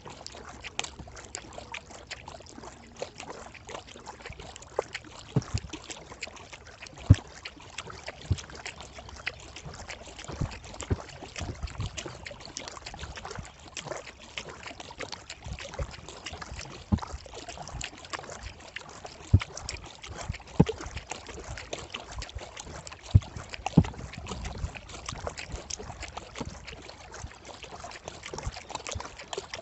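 Kayak paddling on calm water: the paddle blades dip and pull with water trickling and dripping off them. Irregular sharp clicks and knocks come through now and then, a few much louder than the rest.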